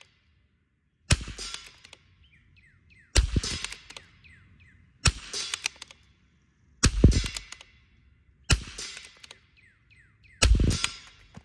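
Six rifle shots from a Vudoo bolt-action .22 rimfire, one about every two seconds, each sharp crack followed by a short echoing tail: a timed string of aimed shots.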